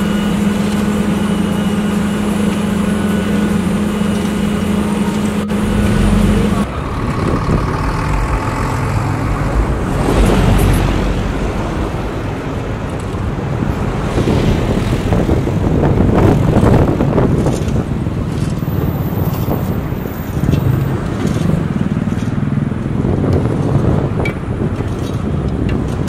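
Asphalt paver's diesel engine running close by with a steady hum. About six and a half seconds in, the sound cuts to a rougher mix of machine noise and wind-like rumble that swells and fades.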